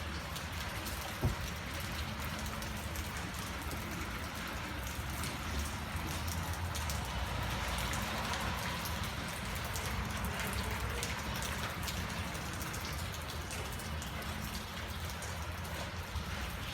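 Steady rain falling, with many separate drops heard as small ticks, over a low steady rumble. A single sharp click sounds about a second in.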